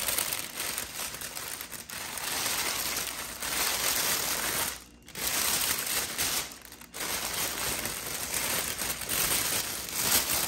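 Clear plastic oven bag crinkling and rustling as it is handled and drawn around a ham, with two brief pauses about halfway through.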